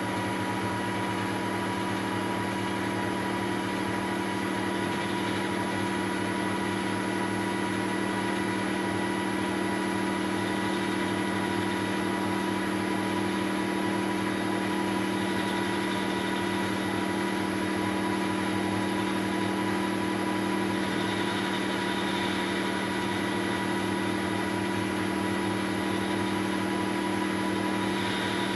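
Weiler Matador SV lathe running steadily at 800 rpm, its motor and gearing giving a constant hum with several held tones, while a carbide insert takes a light hand-fed facing cut across a 20 mm mild steel bar. A faint hiss of cutting rises over the hum in the last third.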